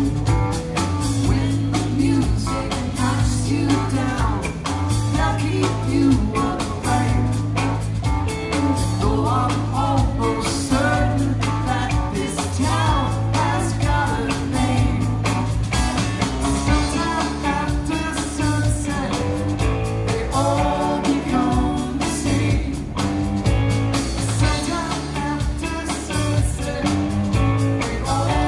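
Rock/blues song with electric guitar and a singing voice, laid over the video as the soundtrack.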